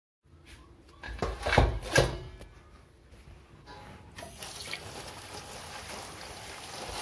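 A few sharp knocks about one to two seconds in, then tap water running steadily onto taro leaves in a basin from about four seconds in.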